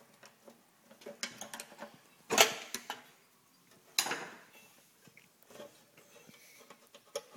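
Clinks, clicks and knocks of metal tools and engine parts as the carburetor is worked loose from a 5 hp Briggs & Stratton engine. There are two louder sharp knocks, about two and a half seconds and four seconds in.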